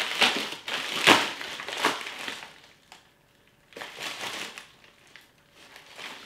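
Packaging being opened and crumpled by hand: a dense run of crinkling, crushing noises for the first two and a half seconds, loudest about a second in, then a softer bout of handling about four seconds in.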